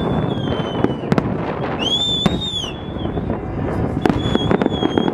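Fireworks display: a rapid, irregular series of bangs from bursting shells, with a high whistle that rises and falls about two seconds in and shorter high whistles near the start and end.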